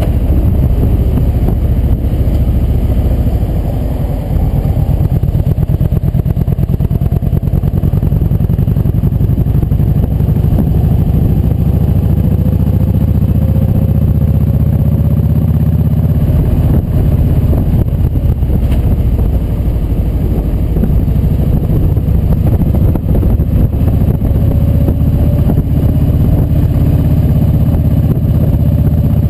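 Kawasaki Vulcan Voyager VN1700's V-twin engine running steadily at road speed, heard from a camera on the bike with wind and road noise. The engine note rises slowly around the middle and again near the end.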